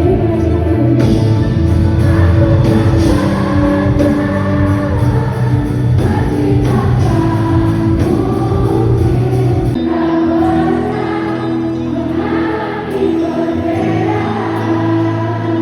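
Background music: a song with sung vocals over held chords and a steady beat, the bass dropping out briefly about ten seconds in.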